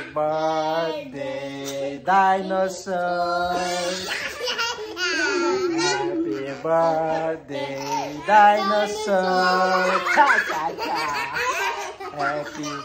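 Air squealing out of rubber balloons in a string of long buzzing tones, with children and a man laughing.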